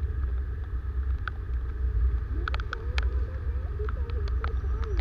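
Honda motorcycle riding slowly along a flooded road in the rain: a steady low rumble of engine and wind on the microphone, with scattered sharp ticks of raindrops striking the camera.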